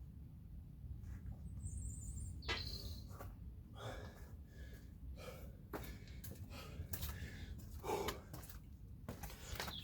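A man breathing hard in short, irregular breaths with some rustling, recovering after a set of explosive kettlebell jump squats, over a low steady rumble.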